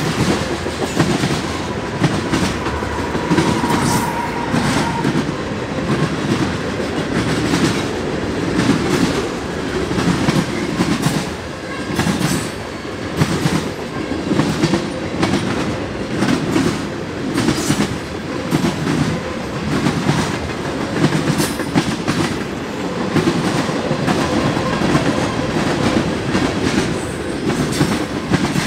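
Freight train of tank cars and boxcars rolling past, its wheels clacking over the rail joints in a steady repeating rhythm over a low rumble.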